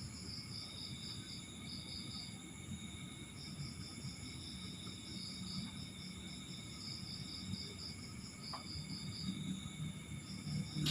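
Crickets chirping in rapid trains of high pulses that start and stop in bursts, over a steady faint hum and low rumble.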